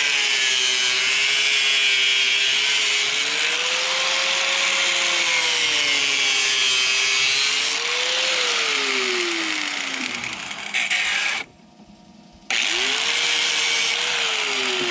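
Angle grinder with a metal cutting blade cutting through PVC pipe, its motor pitch dipping and recovering as the blade bites. About two-thirds of the way in it winds down and goes quiet for about a second, then spins up again briefly and winds down near the end.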